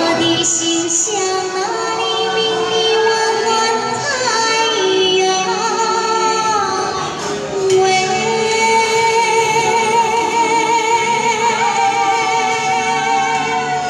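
A woman singing into a handheld microphone through a small portable amplifier, with musical accompaniment; about halfway through she holds one long note with vibrato.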